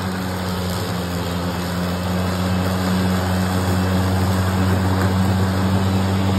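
EGO 21-inch battery-powered lawnmower running and cutting grass: a steady motor hum with a rushing of the spinning blade and grass.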